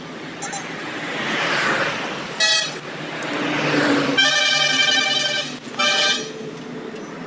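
Vehicle horns honking: a short blast, a long blast of over a second, then another short blast, over road traffic noise that swells and fades.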